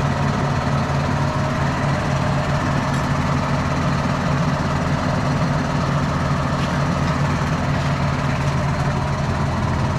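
Tractor engine idling steadily, a constant low hum with no change in speed.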